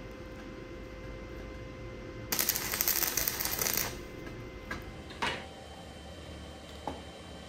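Stick (arc) welder crackling for about a second and a half as an electrode tacks a bundle of nails together, followed by a couple of short knocks.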